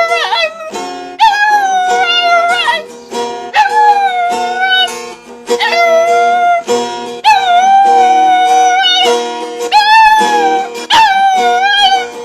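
Dog howling along to guitar music in about six long, wavering notes, each sliding in and then held for a second or two, over the strummed chords.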